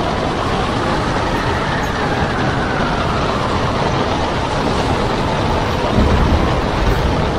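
Storm wind and heavy breaking seas making a steady loud rush, with a louder low rumble about six seconds in.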